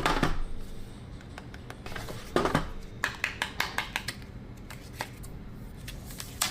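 Hands handling a smartphone box and its contents: a series of light clicks and taps, with a louder scrape about two and a half seconds in.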